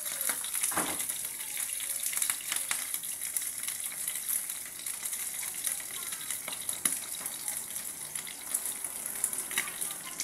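Tinapa (smoked fish) frying in hot oil in a shallow pan: a steady sizzle with frequent crackles and pops of spitting oil.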